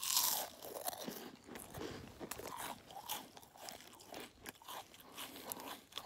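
A bite into a crisp chocolate-filled wafer roll, loudest at the very start, followed by repeated crunching as it is chewed with the mouth open.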